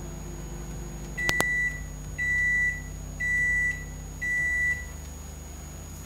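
A 900-watt microwave oven ending its cooking cycle. Its running hum stops with a click about a second in, then four beeps about a second apart signal that the cycle is finished.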